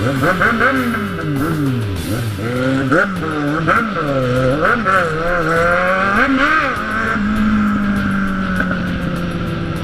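Inline-four sport motorcycle engine revved up and down repeatedly, its pitch rising and falling several times in quick succession, then running at a steady speed from about seven seconds in.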